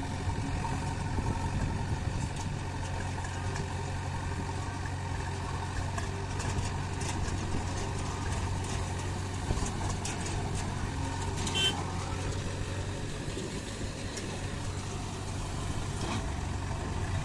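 Heavy diesel engine running steadily at low speed, with a few short knocks over it, the clearest about twelve seconds in.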